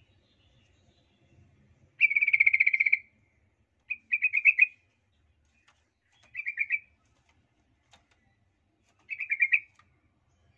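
Yellow-vented bulbul (cucak trucuk) giving four bursts of rapid chattering notes, the first and longest about two seconds in, the rest shorter, a couple of seconds apart. This is the lure call that bird keepers use to provoke other bulbuls.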